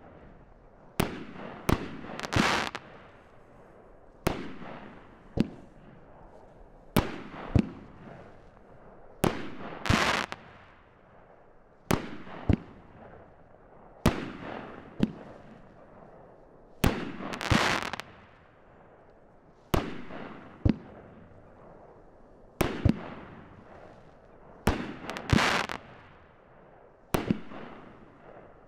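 Leviathan 500-gram fireworks cake firing shot after shot, about one every two to three seconds: each a sharp launch crack followed about a second later by the shell's aerial burst with a fading crackle.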